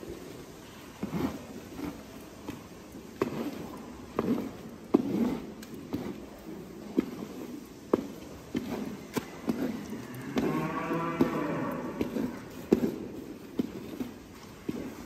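A Holstein dairy cow moos once, a single call of about a second and a half, about ten seconds in. Scattered sharp knocks and clanks are heard throughout.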